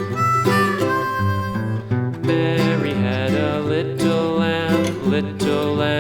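Country-style instrumental music: a harmonica melody over acoustic guitar, with the harmonica's held notes giving way to the guitar and band about two seconds in.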